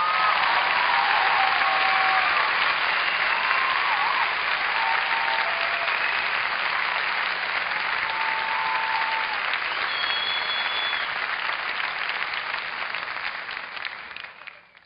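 Audience applauding, with a few short whistles over the clapping; the applause fades out near the end.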